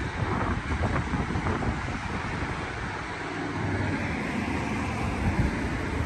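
Road traffic on a multi-lane street, with cars passing by.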